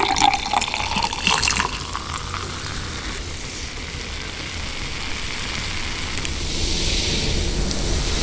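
Sparkling water poured into a glass, the pitch of the pour rising as the glass fills, for about the first two seconds. A steady fizzing hiss of carbonation bubbles follows.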